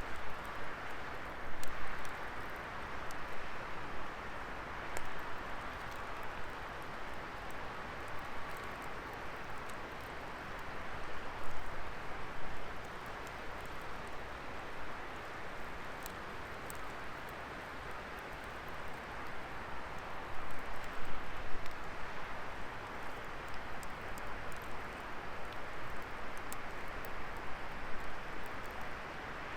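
Wood fire burning in a fire pit: a steady hiss with scattered sharp crackles and pops, swelling a little louder now and then.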